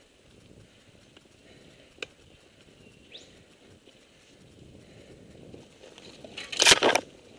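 Mountain bike rolling over a sandy, rocky trail, with steady tyre and drivetrain noise. A sharp click about two seconds in and a short rising squeak a second later; near the end a loud, short rattling burst as the bike jolts or brushes through bushes.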